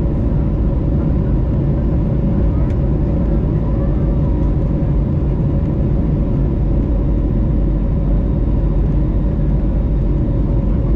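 Steady cabin noise of an Airbus A321neo in its climb: the Pratt & Whitney PW1100G geared turbofans at climb power and the airflow past the fuselage, a deep steady rumble with a constant mid-pitched hum on top.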